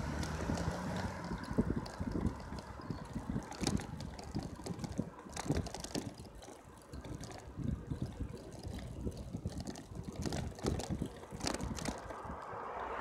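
Wind buffeting the microphone of a camera riding on a moving bicycle, an uneven low rumble with scattered knocks and rattles.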